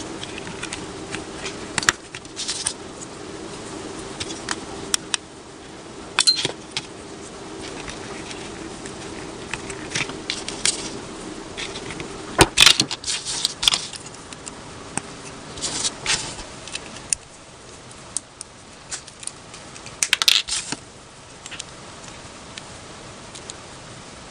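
Small plastic building-block pieces clicking, clacking and rattling as hands snap together a buildable toy figure, in irregular bursts with the loudest clatters about halfway through and again near twenty seconds. A steady low hum sits under the first half and stops about halfway.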